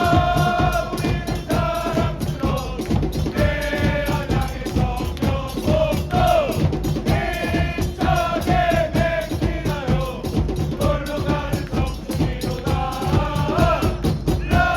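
Football supporters singing a chant in unison over a fast, steady drum beat.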